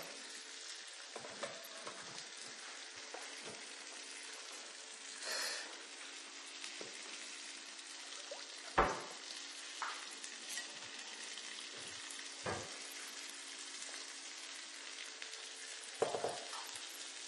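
Food sizzling steadily in a pan, with a few knocks and clatters of bowls and pots, the sharpest about halfway through.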